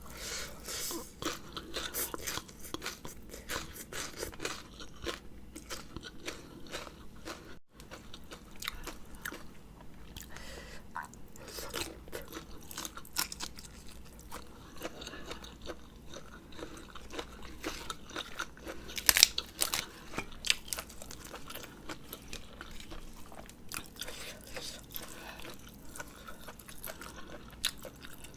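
A person chewing and crunching food close to the microphone while eating a spicy Thai rice noodle salad, with many short crisp crunches; the loudest crunches come about 19 seconds in.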